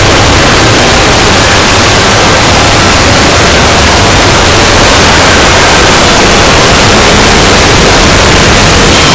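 Harsh, heavily clipped digital noise at full volume, steady throughout. It is an audio track distorted past recognition into static-like hiss and rumble.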